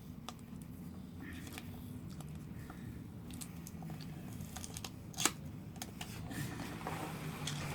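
Paper and cardboard packaging being handled and rustled, with scattered small clicks and light knocks as a card is worked out of the box; one sharper click about five seconds in.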